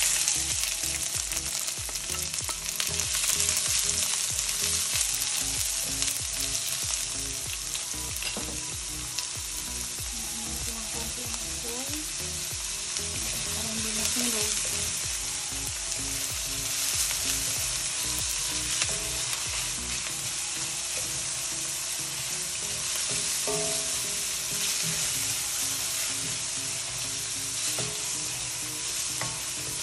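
Onion sizzling in hot olive oil as it is sautéed, the sizzle starting sharply as the onion hits the oil and then running steadily, with occasional stirring.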